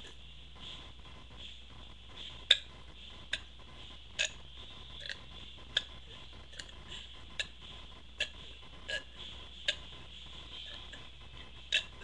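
A series of short, sharp clicks in the throat, about ten at irregular intervals of roughly a second, the sound of gulping air to bring up a burp; no burp comes through.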